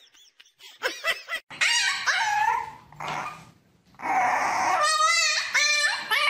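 Puppies whining and yipping in short, wavering, high calls, with a brief pause about three seconds in before a louder run of yips.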